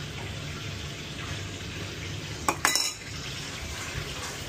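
Commercial kitchen noise: a steady low hum of the extraction hoods under a hiss, with a loud, ringing clatter of metal kitchenware about two and a half seconds in.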